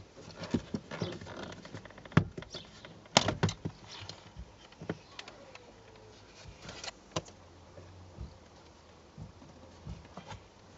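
Irregular clicks, knocks and clatter of the Nissan Leaf's plastic interior trim being forced and handled by hand, loudest about two and three seconds in, with a brief falling squeak just past the middle.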